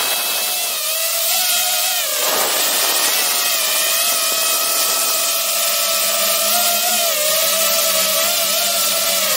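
DJI FPV drone's brushless motors and propellers running in flight, heard up close from the camera mounted on the airframe: a steady high whine whose pitch wavers with the throttle and drops briefly about two seconds in.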